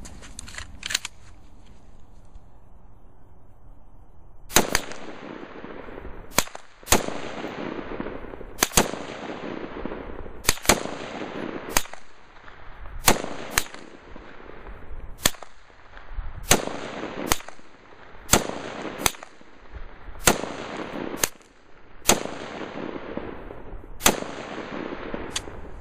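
An AR-15 and a Ruger 10/22 rifle firing single shots at an uneven pace, about eighteen shots starting some four seconds in, sometimes two in quick succession. Each shot is followed by a long echo.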